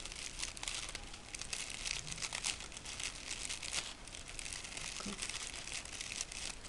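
Crepe paper rustling and crinkling in irregular little crackles as hands wrap and squeeze the petals of a paper rose tight around its wire stem.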